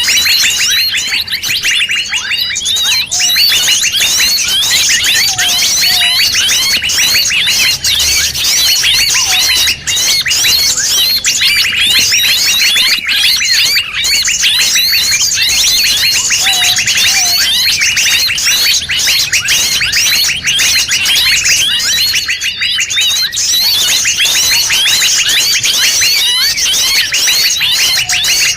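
A dense chorus of many forest birds calling at once, rapid overlapping chirps and whistled trills with no pause. It is a mixed bird-lure recording of noisy forest birds.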